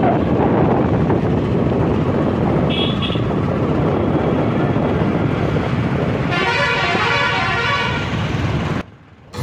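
Road and wind noise from a moving vehicle, with a short high horn toot about three seconds in and a longer horn blast held for two to three seconds from about six seconds in. The noise drops away suddenly near the end.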